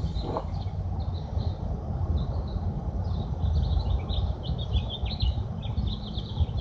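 Small birds chirping, many short high chirps in quick runs that grow busier after the first couple of seconds, over a steady low rumble on the microphone.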